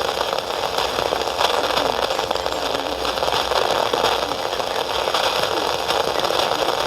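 Loud, steady radio static, a hiss with crackling that covers the weather-alert broadcast, cutting off near the end.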